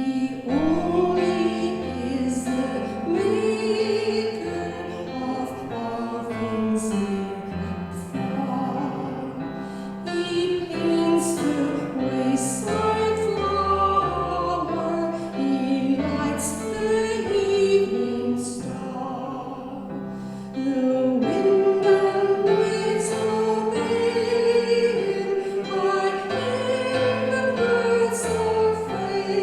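Voices singing a hymn with keyboard accompaniment. The singing comes in right at the start after a short keyboard introduction.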